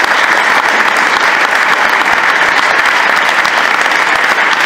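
Audience applauding: steady, dense clapping from many hands.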